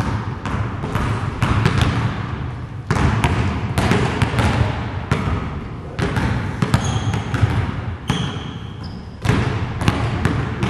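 Several basketballs bouncing on a gym floor, an irregular overlapping run of impacts as players dribble and shoot. A few short, high sneaker squeaks come near two-thirds of the way through.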